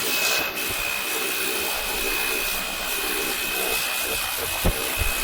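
SLENJADFIN cordless handheld pressure washer, running on a Dewalt 20V battery, running steadily: a constant high whine from its pump motor over a steady hiss. A couple of soft knocks come near the end.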